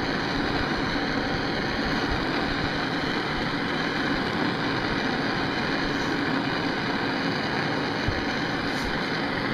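MAP gas torch burning with a steady, even hiss, heating a leaf spring eye to loosen its molded-in rubber bushing.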